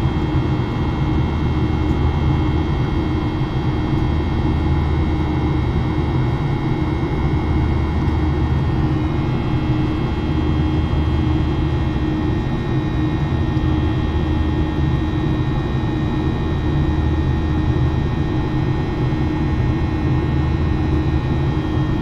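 Boeing 737 jet engines and airflow heard inside the passenger cabin: a steady low rumble with constant engine whine, as the airliner climbs after takeoff. The whine shifts slightly in pitch about nine seconds in.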